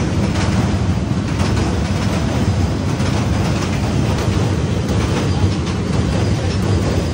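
Freight train of tank wagons rolling past on a steel truss railway bridge: a steady loud rumble with faint repeated clacks of wheels over the rails.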